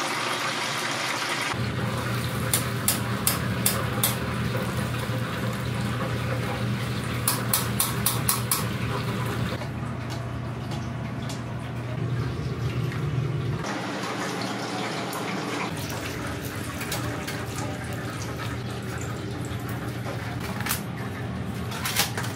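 Chicken karaage sizzling as it deep-fries in oil, over a steady low hum, with two runs of quick clicks a few seconds in.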